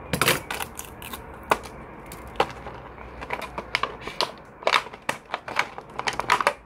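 Stiff clear plastic blister packaging being pried open by hand: an irregular run of sharp crackles and clicks.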